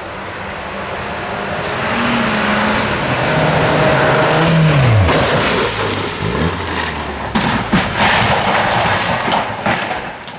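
Volvo rally car on a gravel stage: the engine revs rise as it approaches, drop steeply about five seconds in as the driver lifts off for the corner, then it pulls again while gravel spatters and clatters as the car slides past.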